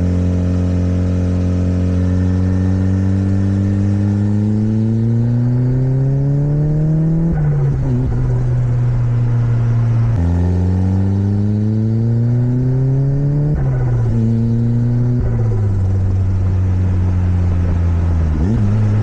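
Turbocharged 1.8-litre engine of a modified Toyota MR2 Roadster under way: its pitch climbs slowly as the car accelerates, then falls back suddenly several times as the throttle is lifted, with turbo flutter at the lift-offs and steady running in between.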